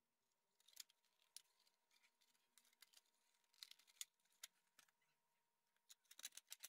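Faint, scattered clicks and taps as a furnace control circuit board is handled and fitted into its plastic housing, with a quick cluster of clicks near the end.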